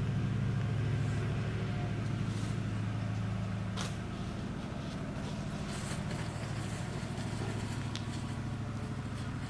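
A steady low mechanical hum, such as a running engine or motor, with a few short faint clicks.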